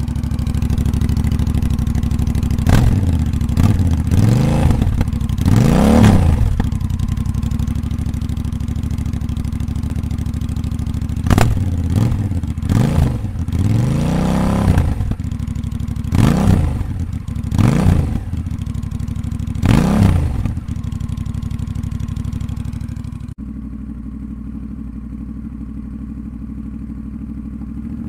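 Honda CMX1100 Rebel's parallel-twin engine running with no muffler, idling and revved in a series of short throttle blips that rise and fall in pitch. About three-quarters of the way through, the sound cuts abruptly to a quieter, duller idle of the same engine fitted with a Two Brothers Racing exhaust.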